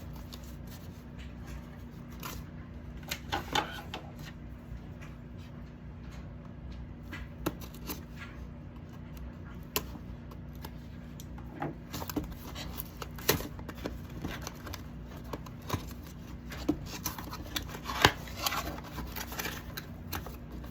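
Scattered clicks, taps and short rustles of a metal detector's packaging and parts being handled while unboxing, with one sharper knock near the end, over a steady low hum.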